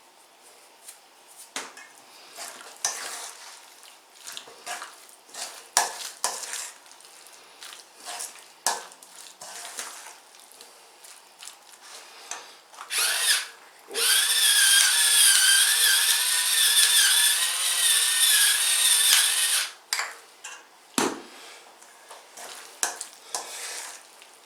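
Electric pepper mill grinding black pepper for about six seconds with a steady motor whine, a little past the middle. Before and after it come scattered light clicks and knocks of kitchen utensils, and a dull thump near the end.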